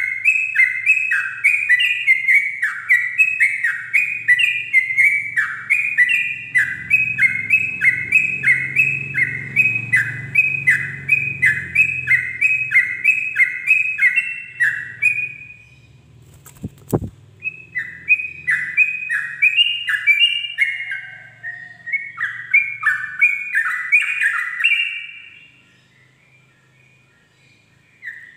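Yellow-vented bulbul (trucukan) singing its rapid rolling 'ropel' song: quick bubbly notes repeated about two a second in a long run, a short break, then a second run. There is a single brief click in the break.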